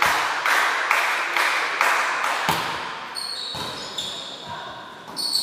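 Volleyball match in a sports hall. Rhythmic clapping, about two claps a second, fades out over the first two to three seconds. A single ball strike comes about halfway in, then sneakers squeak on the gym floor as the players move, with a sharp squeak near the end.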